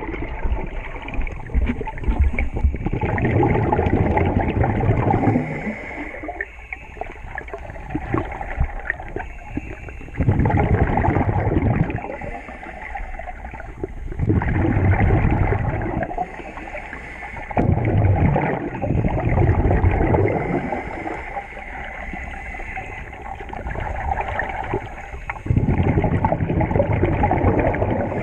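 Scuba regulator breathing recorded underwater: bursts of gurgling exhaled bubbles, each lasting a second or two, come several seconds apart at an uneven pace, with quieter stretches between them.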